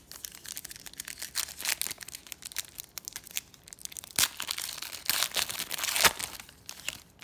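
Foil wrapper of a Donruss Elite football card pack being torn open and crinkled by hand, a continuous crackling with louder tears a little after four seconds and again between five and six seconds.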